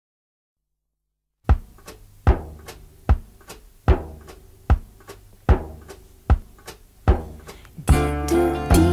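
Song intro: a deep drum beat, one strong hit about every 0.8 s with softer hits between, starting after about a second and a half of silence. Near the end fuller music comes in over it.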